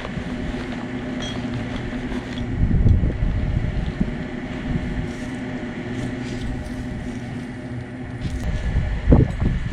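Wind rumbling on the microphone, with a steady low hum underneath and a couple of dull thumps, one about three seconds in and one near the end.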